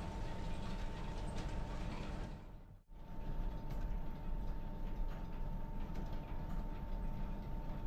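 Belt-driven Drummond lathe running steadily: a low rumble with a steady whine and a light mechanical clatter. The sound cuts out for an instant about three seconds in, then carries on the same.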